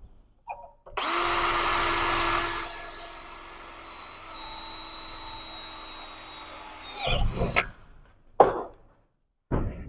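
Power drill boring a hole. It starts about a second in and runs hard at first, then drops to a lighter, steady whine. It stops about seven seconds in, followed by a short sharp click.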